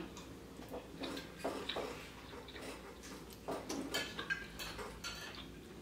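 Eating at a table: scattered soft clicks and taps of cutlery against a dish or food container, several of them in the second half.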